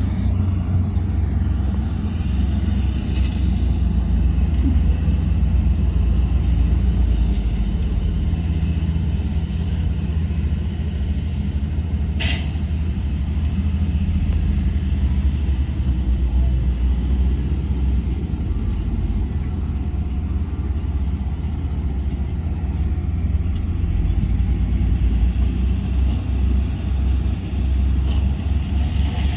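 Heavy earthmoving machinery's diesel engines running steadily with a deep low rumble. A single short, sharp hiss comes about twelve seconds in.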